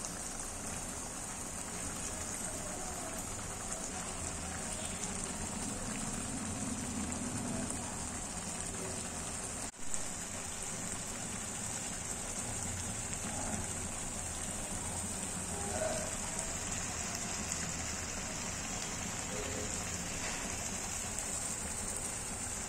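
Prawn masala gravy with coconut milk simmering in an iron kadai: a steady sizzle and bubbling.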